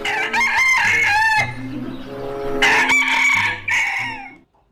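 A rooster crowing twice, two long calls about a second apart.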